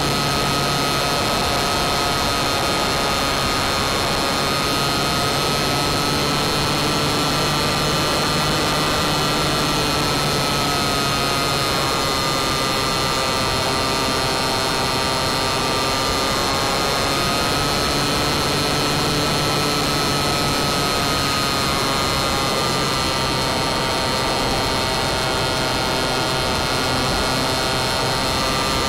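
Radio-controlled model airplane's motor and propeller running steadily in flight, heard from a camera mounted on the plane: a constant high whine that wavers slightly in pitch as the plane manoeuvres, over a steady rush of air.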